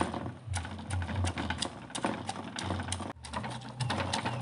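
Stone pestle pounding shallots, garlic, chillies and other spices in a stone mortar: rapid, uneven knocks of stone on stone with dull thuds, several strikes a second, with a short break about three seconds in. The spices are being crushed into a paste.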